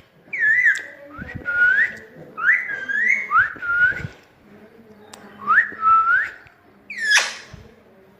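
Pet parrot whistling: a string of short, rising whistles with a brief pause midway and a sharper, higher call near the end.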